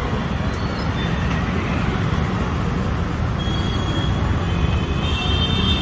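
Steady road traffic rumble, with a high, steady tone coming in near the end.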